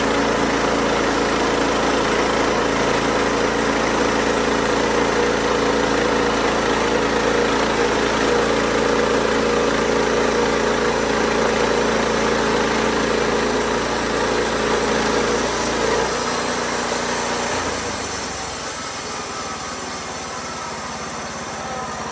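WoodMizer LX55 band sawmill running steadily under its engine. About sixteen seconds in, the engine note drops away and the remaining sound fades off toward the end.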